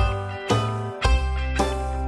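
Background music with a steady beat, about two beats a second, over a bass line.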